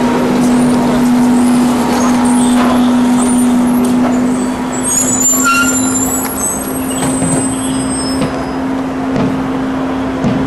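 Large crowd of protesters marching along a street: a steady outdoor din of many people on the move, with a constant hum underneath and a few high whistling tones about five seconds in.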